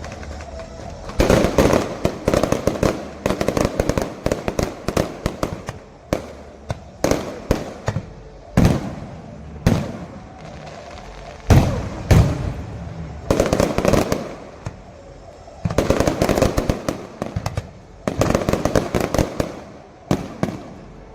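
Fireworks going off in volleys: dense clusters of sharp crackling bangs, with a few single heavy booms in between, repeating every few seconds.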